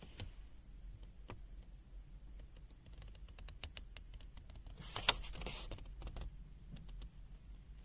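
Scattered faint clicks and taps from handling a pen-type digital multimeter and pressing its buttons. There is a short rustle with one sharper click about five seconds in.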